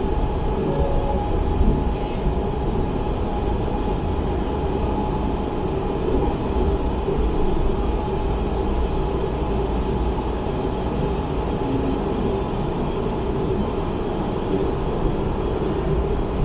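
Inside a CSR Zhuzhou "AMY" light rail car running on its track: a steady rumble with a steady whine through it. There is a brief hiss near the end as the car reaches the platform.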